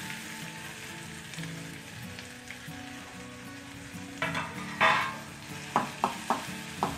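Chopped onion sizzling in hot oil in a kadhai, just added to the garlic and green chilli. From about four seconds in a steel spoon stirs it, scraping and knocking sharply against the pan several times near the end.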